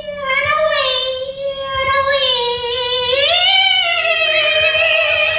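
A high, child-like voice singing unaccompanied in long held notes, the pitch stepping up about halfway through.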